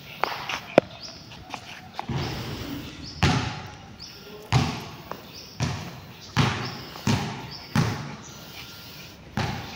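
Footsteps on a concrete basketball court, about one step a second, each a hard slap with a short scuff. A couple of sharp clicks come in the first second.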